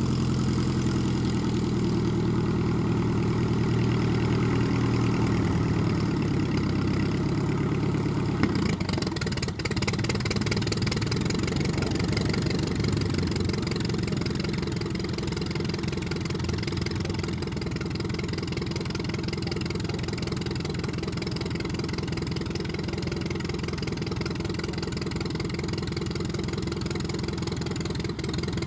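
A Klemm 35D's small inverted four-cylinder piston engine running steadily, strongest for the first eight seconds or so, then easing off a little and carrying on at a lower level.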